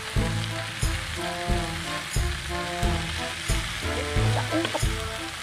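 Long beans, carrot and tempeh stir-frying and sizzling in a pan, heard under background music with a steady beat of about one and a half thumps a second.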